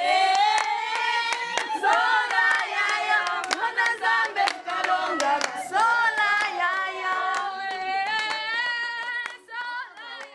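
A group of women singing together with irregular hand-clapping, as a welcome song; the singing and clapping thin out near the end.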